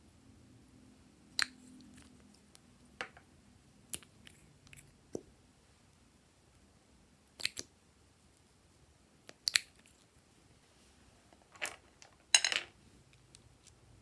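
A few scattered sharp clicks and taps from small plastic cosmetic bottles and caps being handled, with a quick cluster of clicks near the end.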